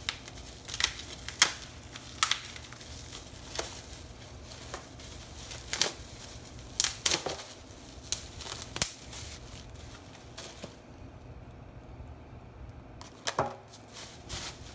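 Plastic packaging and bubble wrap crinkling and rustling in sharp, irregular crackles as parts are unwrapped by hand, with a quieter pause about three-quarters through before a last few crackles.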